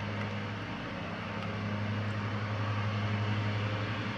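A steady low mechanical hum, as of a motor or fan running, rising a little in the middle.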